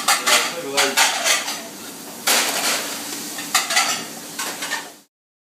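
Plates and cutlery clattering at a kitchen pass, several sharp knocks over a steady frying sizzle; the sound cuts off suddenly about five seconds in.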